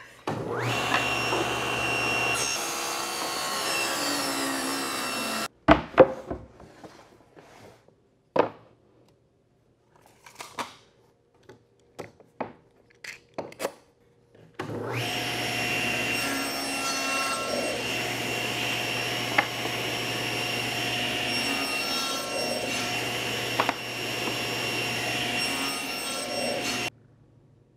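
SawStop table saw running and cutting wood boards for a few seconds, stopping abruptly. Several knocks and clicks of boards being handled follow. Then the saw runs again for about twelve seconds as boards are crosscut on a sled.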